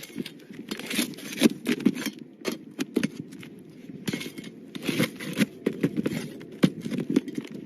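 Asphalt shingles being handled and pried apart on a roof: irregular scraping, rubbing and crackling with many short sharp clicks as sealed shingle tabs are broken loose and worked back.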